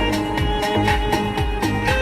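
Background music: an instrumental passage of a Turkish pop song with a steady beat and held melody lines, no singing.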